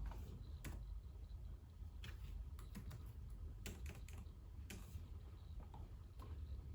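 Typing on a computer keyboard: irregular runs of soft keystroke clicks over a faint low hum.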